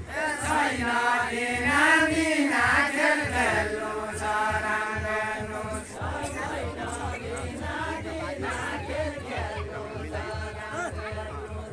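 A group of voices singing a deuda, the far-western Nepali folk song, in long held and bending notes without instruments.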